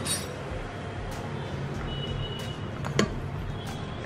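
One sharp tap of a utensil against the cooker's inner pot about three seconds in, over a steady low hum.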